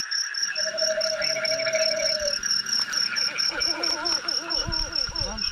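Night chorus of forest insects: an even, fast chirping pulse about five times a second over a steady high buzz. A held mid-pitched call runs from about half a second to two seconds in, and wavering calls come in the last couple of seconds.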